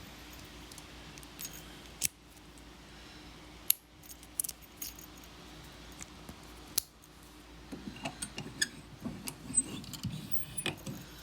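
Lock picking on a small brass padlock: scattered sharp metallic clicks and light rattling of the pick and tension tool in the lock, becoming a denser run of clicks and rattles in the last few seconds.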